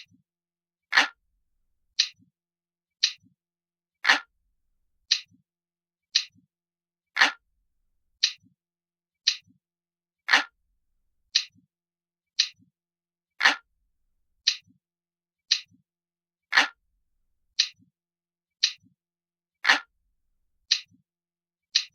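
Recorded clock ticking sound effect, one sharp tick each second, with every third tick deeper and fuller than the two lighter ones between.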